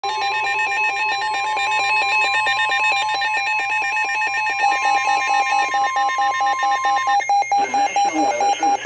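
NOAA Weather Radio 1050 Hz warning alarm tone, held steady and cutting off about seven seconds in, sounding together with a fast, repeating electronic alert beep. A voice begins just after the tone stops, under the continuing beeps.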